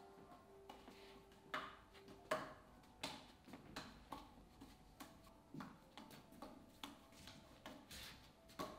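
Juggling clubs slapping into the juggler's hands as he catches and throws them: irregular soft taps and clicks, a couple a second, the loudest a little over two seconds in. A faint steady tone sounds under the first two seconds.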